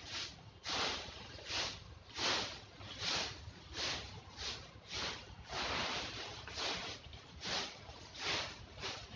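A broom sweeping over the ground in regular, scratchy strokes, a little more than one a second, gathering fallen leaves.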